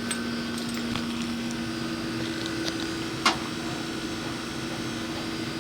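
Trane XL20i 3-ton heat pump outdoor unit running in full mode: a steady hum, with one short click a little past three seconds in.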